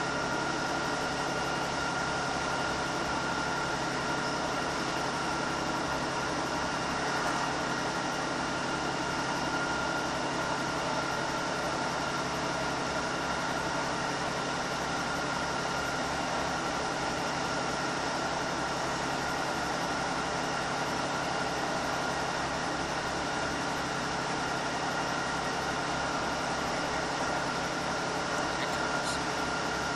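Class 150 Sprinter diesel multiple unit heard from inside the passenger saloon: its underfloor Cummins diesel engine running steadily, with a low fast throb and a steady high-pitched hum over an even rumble.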